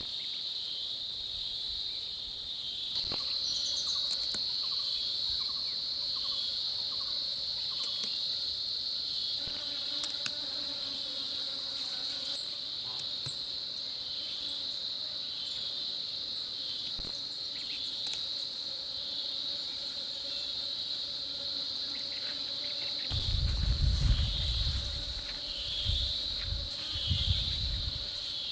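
Steady high-pitched chorus of insects chirring without a break. Low rumbles come in over it near the end.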